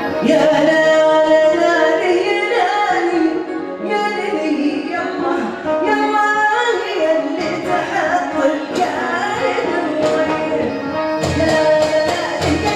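Arabic wedding song: a sung melody over melodic instrumental accompaniment. A regular drum beat comes in near the end.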